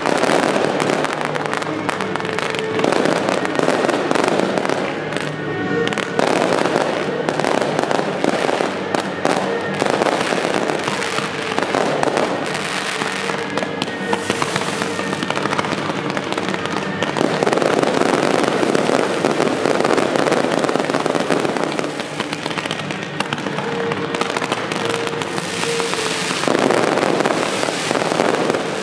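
Fireworks display: aerial shells launching and bursting with dense crackling and popping, which swells and eases in several surges.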